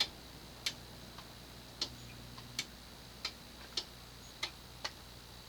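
A series of light, sharp clicks, about one every two-thirds of a second and eight in all, from a Hampton Bay Callaway II ceiling fan just switched off by its remote, over a faint hum.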